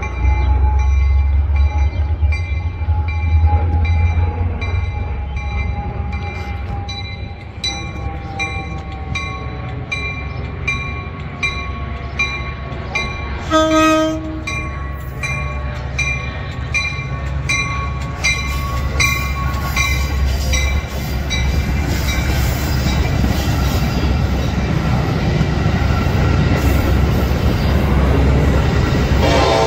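Metra diesel commuter train running past with a steady low rumble, while grade-crossing warning bells ring a little under twice a second and fade out about two-thirds of the way through. A short horn blast sounds about halfway, and another horn starts near the end.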